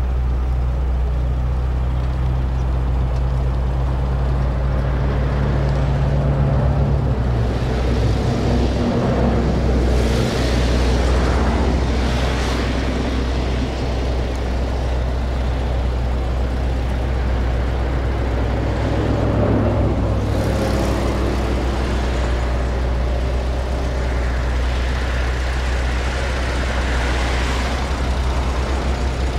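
Steady engine drone and road noise of a moving car heard from inside the cabin, with brief swells of rushing noise about ten, twelve and twenty seconds in.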